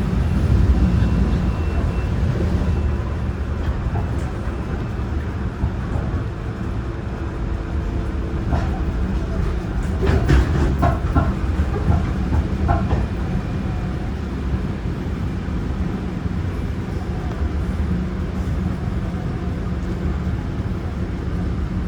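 Older Seoul Subway Line 4 train with a Toshiba GTO-thyristor VVVF traction drive, running along the line: a steady heavy rumble of wheels on rail with faint steady motor tones, and a brief run of clicks over the rail about ten seconds in.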